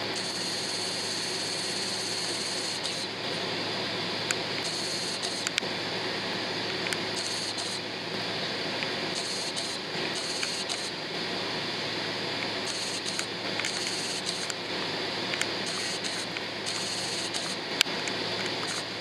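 Jet airliner cabin noise while taxiing: a steady engine hum and rush with a constant low tone. A few faint clicks, and a higher hiss that cuts in and out several times.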